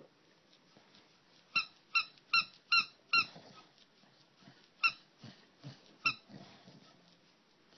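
A squeaky tennis-ball-felt bone toy squeaking as an English bulldog chews on it. It squeaks five times in quick succession, about two and a half squeaks a second, starting a second and a half in, then twice more singly, with soft chewing and mouthing noises between.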